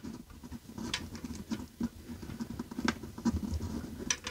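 Faint irregular scratching, rustling and small clicks of fingers twisting plastic wire nuts onto stripped wires at a ceiling light fixture.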